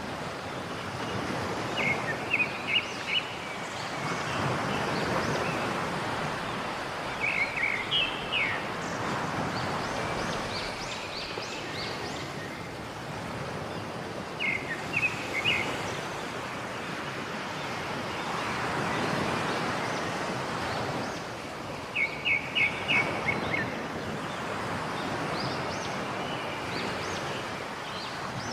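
Rushing water, a steady hiss that swells and eases every few seconds, with a small bird chirping in quick runs of three to five notes four times.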